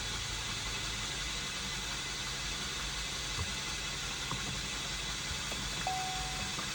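Starter cranking the Chevrolet Equinox's four-cylinder engine over steadily, without it firing, during a compression test of cylinder number 2.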